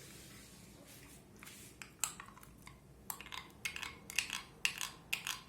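Utensil clinking and scraping against a dish as chopped mango is added to the custard mixture: a run of light knocks starting about two seconds in and coming more often near the end.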